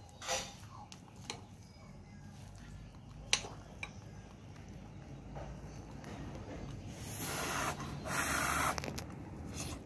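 A few light clicks of a spoon against a plate, then two short bursts of hissing noise near the end, the loudest sounds here, as a spoonful of food is put to the mouth and eaten.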